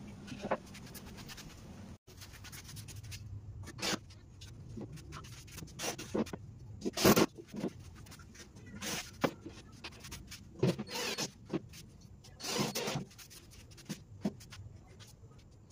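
Hands and tools working on a plywood box: irregular short scrapes, rubs and knocks, with a sudden cut about two seconds in.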